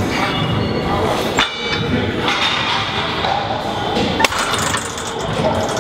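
Gym weight machine clanking: two sharp metallic knocks, about a second and a half in and again about four seconds in, the first ringing briefly, over a steady din of background noise.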